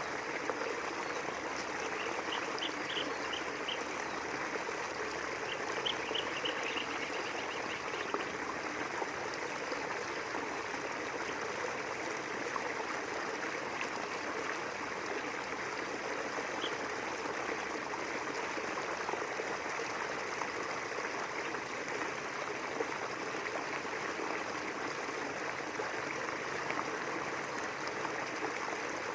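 River water flowing steadily between rice fields, an even rushing trickle. Two short runs of high chirps sound over it in the first third.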